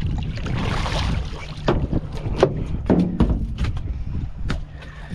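A string of sharp knocks and thumps on a fishing boat's deck as a halibut is hauled aboard. Under them runs a steady low rumble with wind on the microphone, and a hissing splash comes in the first second.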